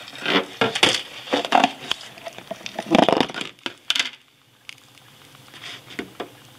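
Irregular rustling, crinkling and small knocks of rice and a container being handled, loudest in a cluster about three seconds in, then quieter.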